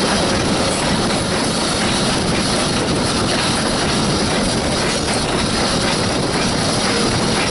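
Steam locomotive S.P.L.CO. #28 and its tender rolling along the track, heard close to the wheels: a steady rumble and clatter of wheels on rail.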